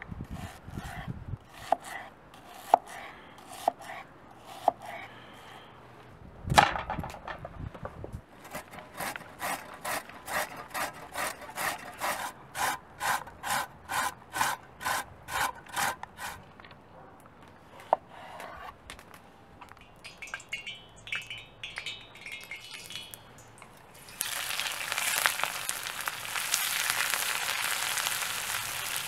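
A knife slices through an onion on a wooden cutting board in a series of crisp cuts, followed by a single loud thump. A carrot is then rubbed up and down a metal box grater in even strokes, about two a second. From about 24 s, sliced onions sizzle steadily as they fry in a hot wok.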